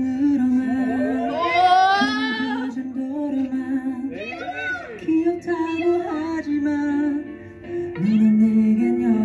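A young man singing a melody in a high, clear voice over backing music, holding notes with a wavering vibrato.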